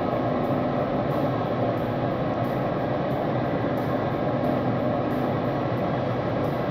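Grilla Grills Silverbac AT pellet grill running with its lid open: a steady whooshing from its combustion fan blowing the fire pot, with a faint low hum.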